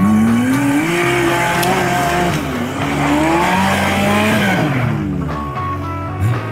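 Off-road 4x4's engine revving up and down twice under load as it climbs a rocky slope, over rock music.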